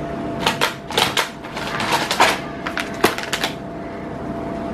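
Plastic snack packets crinkling and crackling as they are handled and set down on a stack of cardboard snack boxes, in short, irregular crackles.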